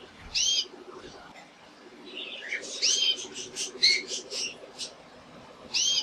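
Male domestic canary singing: a short, high, curving call about half a second in, then a quick run of chirps and trills in the middle, and the same call again near the end.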